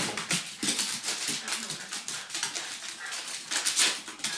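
Two small dogs play-fighting, giving dog vocal sounds over many quick clicks and scuffs of paws on a hardwood floor.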